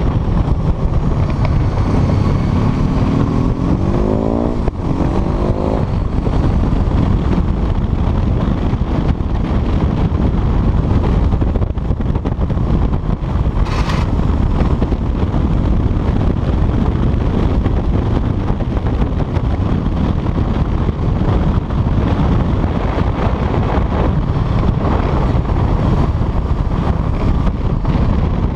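Heavy wind buffeting on a chest-mounted microphone while riding a Honda CBR motorcycle, with the engine heard accelerating, its pitch rising, from about two to six seconds in. A brief sharp noise about halfway through.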